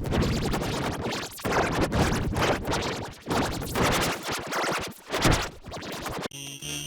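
Harsh, noisy, effects-distorted soundtrack audio with scratchy, choppy breaks, giving way about six seconds in to steadier tonal music.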